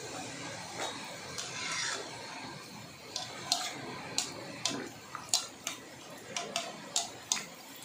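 Hot oil sizzling around a wheat-flour poori deep-frying in a kadai, with a quick run of sharp crackles and pops from about three seconds in as the poori puffs up.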